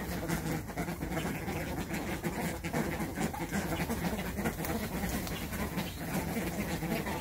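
A flock of American white ibises crowding close and calling: a steady, overlapping chatter of low grunting calls.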